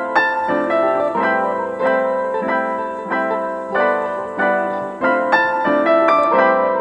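Background instrumental music: a slow melody of struck notes that ring and fade, about one or two a second.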